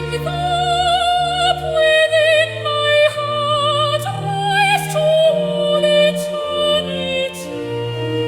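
Slow hymn music: a wavering melody line with vibrato, moving from note to note over sustained low chords.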